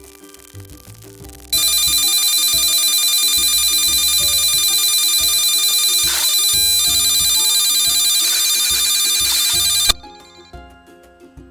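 Electronic alarm of a WiFi alarm clock node going off: a loud, shrill, rapidly pulsing electronic tone that starts about a second and a half in and cuts off suddenly about eight seconds later. Background music plays underneath.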